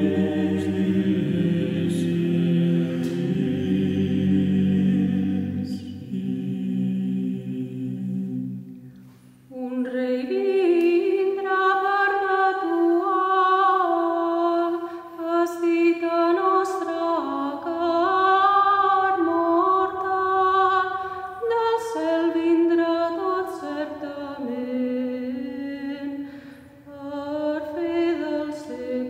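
Background music of unaccompanied choral singing. Low voices sing until about nine seconds in, and after a short pause higher voices take up a flowing melody.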